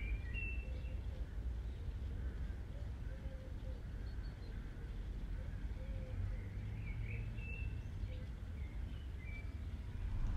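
Outdoor ambience: a steady low rumble with a few scattered faint bird chirps.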